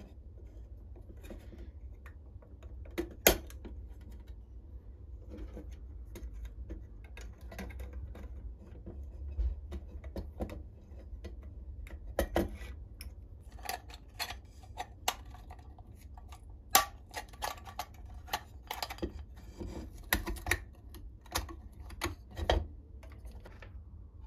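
Irregular small clicks and clinks of metal and glass as a glass globe is fitted into a tin oil lantern and its wire guard is worked with pliers. The clinks come more often in the second half, with sharp knocks about three seconds in and again near the middle.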